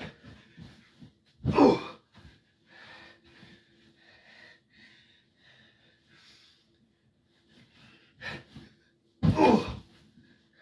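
A person landing hard on a stack of spring mattresses: two loud thuds, about one and a half seconds in and again near the end, with quieter rustling and breathing between.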